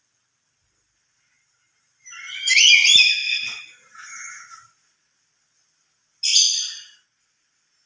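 Black-capped lory giving loud, shrill calls: a call of about two and a half seconds starting about two seconds in, then a shorter call about six seconds in.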